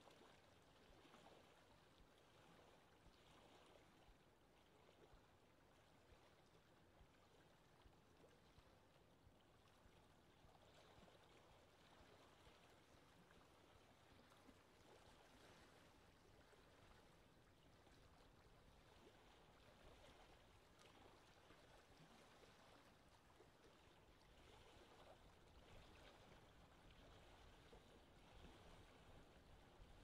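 Very faint lapping water, a soft, even wash of noise with gentle swells.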